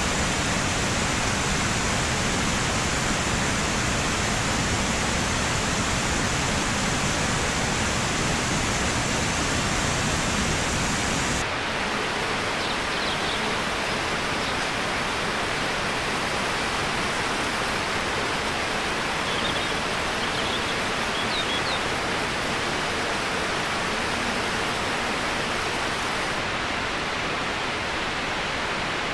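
Waterfall: a steady rush of falling water. About a third of the way in, the sound changes abruptly and loses much of its deep rumble. A few faint high chirps come through over the rush.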